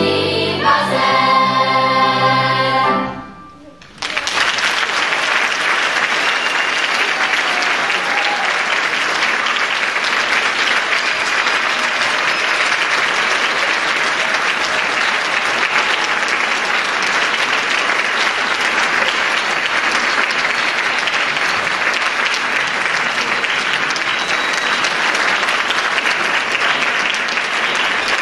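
A children's choir sings the last chord of a song, which stops about three seconds in. After a short pause, the audience breaks into steady applause that goes on to the end.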